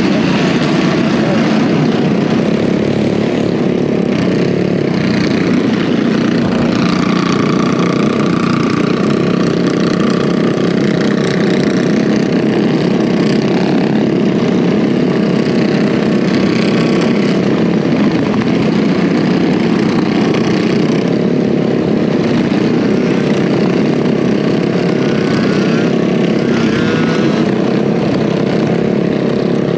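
Single-cylinder Predator 212cc minibike engine running steadily under throttle at cruising speed.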